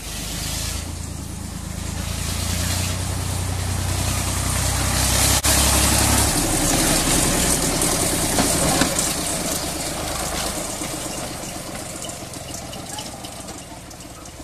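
1960 Motor Rail narrow-gauge diesel locomotive running past close by. Its engine drone swells to its loudest midway and fades as it moves away, with a single sharp click about five seconds in.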